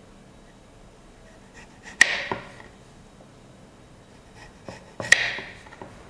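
Kitchen knife cutting through a peeled potato and striking a wooden cutting board: two sharp knocks about three seconds apart, with a few lighter taps.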